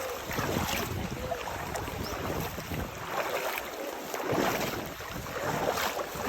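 Strong river current rushing and splashing, with wind buffeting the microphone.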